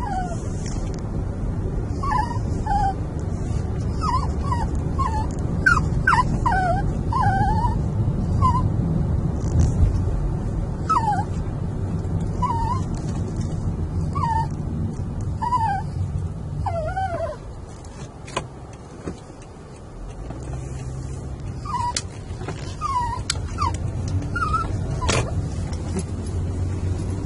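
Small dog whining over and over in short, high, wavering whines inside a moving car, with the steady low rumble of road noise underneath. The whining pauses for a few seconds about two-thirds of the way in, when the rumble also dips, then starts again.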